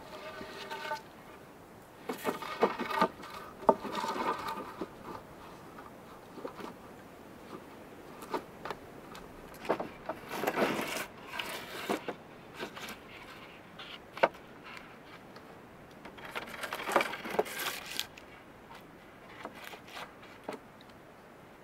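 Irregular knocks, clicks and scrapes of wood being handled, coming in three bursts with scattered single clicks between them. A brief squeaking tone comes at the very start.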